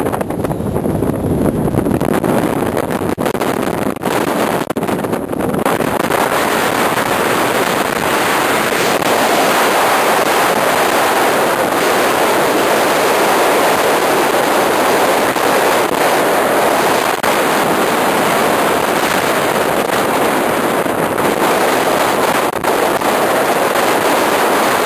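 Wind blowing across the camera microphone, a loud, steady rushing noise.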